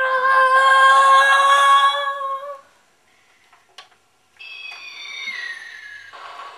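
A long, loud, steady-pitched vocal cry held for about three seconds, then a pause. A falling whistle-like glide follows, like a diving plane, and a scraping, crackling hiss begins near the end.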